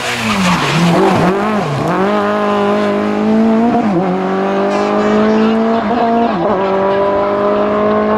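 Renault Clio II rally car's four-cylinder engine at full stage pace: the revs dip and flare twice, then it accelerates away with the pitch climbing, changing up a gear about four seconds in and again about six and a half seconds in.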